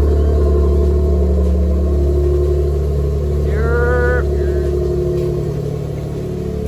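Infiniti G37S's V6 engine running steadily, with test pipes fitted. A brief voice sounds a little past the middle.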